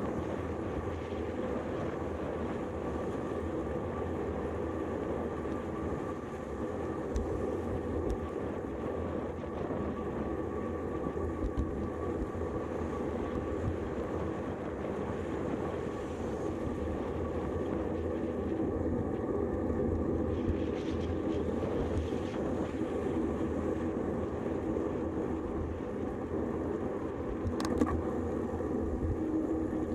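Steady rumble of a road bike rolling on asphalt: tyre and wind noise picked up by a camera mounted on the handlebars. A single sharp click comes near the end.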